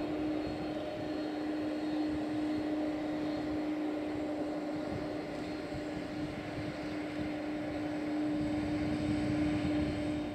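Boeing 767's twin jet engines running at low taxi power as the airliner lines up on the runway: a steady low tone over an even rushing noise.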